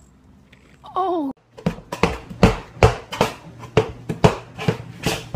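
A steady thumping beat, about two thumps a second, starting about a second and a half in, over a steady low tone. Just before it comes a short wavering, falling pitched sound.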